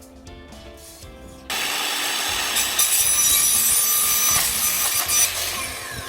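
Quiet background music, then about a second and a half in a power tool starts abruptly and runs loudly under load, a dense grinding noise.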